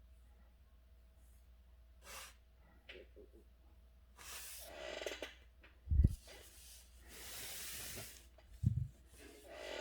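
Handling noises at a calligraphy desk: a few rustling, hissing swishes like sheets of paper being moved, and two dull thumps about six and nine seconds in.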